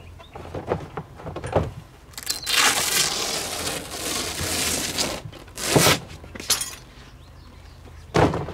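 A travel trailer's front window cover being pulled off: a few light knocks, then about three seconds of rustling and scraping as the cover comes away from the trailer's front, then a few short, sharp sounds as it is handled and folded.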